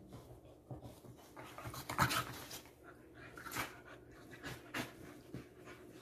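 Two dogs play-wrestling, giving a run of short, irregular bursts of breath and scuffling, the loudest about two seconds in.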